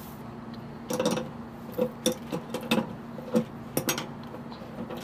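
Light metallic clinks and taps, about ten spread over a few seconds, as a braided flexible hose's nut is unscrewed and pulled off a chrome angle valve.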